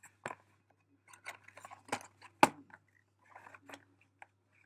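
Handling noises: a cardboard box of washable kids' paint and plastic packaging are picked up, shuffled and set down on a wooden floor, giving a run of clicks, knocks and rustles, with one sharp knock about two and a half seconds in.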